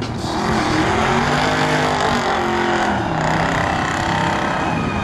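Drag-racing muscle cars accelerating hard down the strip, engine pitch rising, then dipping about three seconds in before holding steady.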